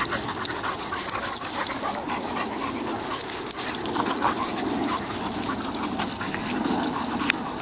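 A boxer and a smaller dog play-wrestling, making near-continuous rough play-fighting vocal noises, with their paws scuffing on gravel.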